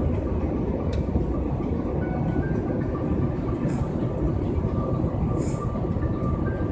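Steady low rumble of a moving vehicle heard from inside, even throughout, with faint thin tones above it.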